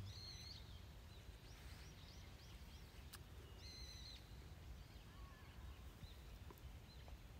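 Near silence with faint bird calls: a brief high chirp just after the start and another around four seconds in, with a few fainter short chirps between.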